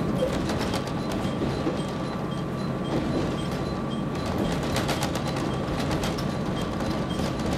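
Inside a KiHa 31 diesel railcar running along the line: a steady rumble of engine and wheels on rail, with a thin steady whine and a light regular ticking.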